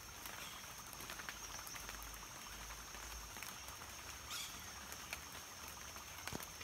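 Light drizzle after rain, with scattered small drips and patters on wet foliage over a steady high-pitched drone. A brief high sound stands out about four seconds in.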